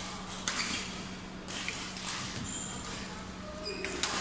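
Badminton rally in a sports hall: several sharp racket hits on the shuttlecock, the loudest near the end, with short squeaks of court shoes on the floor between them. A steady low hum runs underneath.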